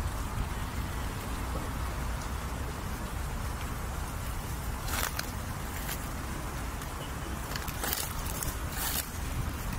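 Steady low background rumble with a few short crackles of dry leaves underfoot: one about halfway through and a couple more near the end.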